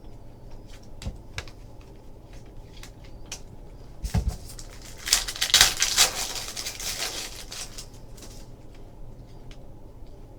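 Light clicks and taps of trading cards being handled, a low thump about four seconds in, then a few seconds of crinkling and tearing as a card pack wrapper is opened.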